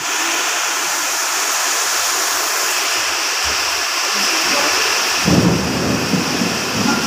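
Heavy rain pouring steadily in a thunderstorm. About five seconds in, a deep, uneven rumble of thunder joins it.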